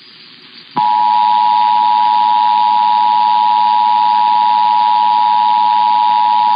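Emergency Alert System two-tone attention signal (853 Hz and 960 Hz together) over a broadcast station's audio, starting abruptly about three-quarters of a second in after a brief hush and holding steady and loud, announcing an EAS test.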